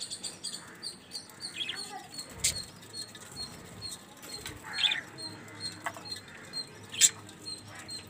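Budgerigars chirping now and then, with a couple of sharp clicks and a brief flutter of wings.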